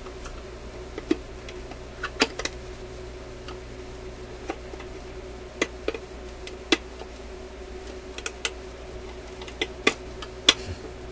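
A screwdriver clicking and tapping against the parts at the centre spindle of an Admiral record player's turntable, prying out a greasy part: a dozen or so short, sharp clicks at irregular intervals, over a steady low hum.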